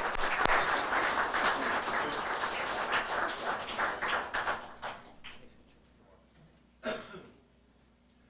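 Audience applauding, with dense crackling hand claps that thin out and die away about five seconds in.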